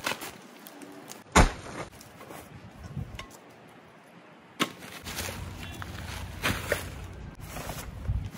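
Camping gear being unpacked from a backpack: rustling of bags and fabric, with a few sharp knocks as items are handled and set down on dry leaves, the loudest about a second and a half in.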